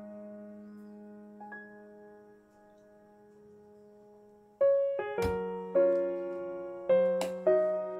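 Soft background piano music: a held chord fades away, then new chords come in a little past halfway. Two sharp knocks sound over it, one just past halfway and one near the end.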